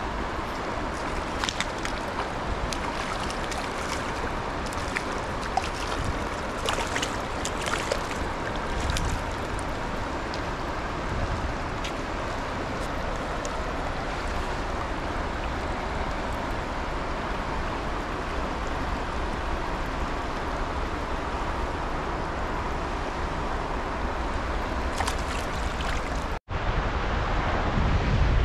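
Flowing river water rushing steadily over rocks, with scattered light clicks and splashes in the first several seconds. Near the end the sound cuts out for a moment, then comes back with louder wind rumble on the microphone.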